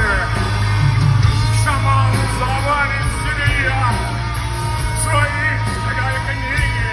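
Live rock band playing a song with a sung vocal, over a heavy, steady bass.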